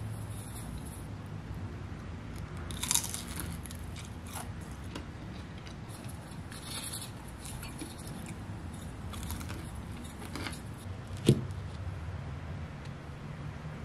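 Close-up eating of crispy fried gimmari (Korean seaweed rolls filled with glass noodles): several crisp crunching bites and chewing, with one sharp click of metal chopsticks on the dish about three-quarters through, the loudest sound.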